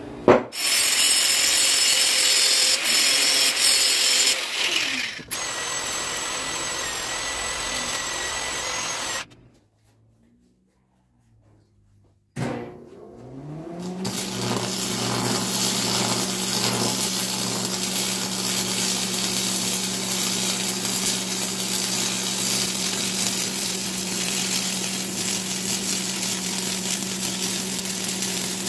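Abrasive chop saw cutting through thick-walled square steel tubing for about five seconds, then running on more quietly once through the cut. After a gap, an angle grinder spins up with a rising whine and runs steadily, grinding on the steel tubing.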